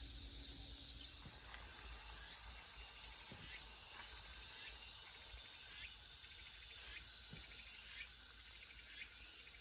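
Faint outdoor ambience: insects chirring in a steady high hiss with soft regular pulses, and a few short bird chirps.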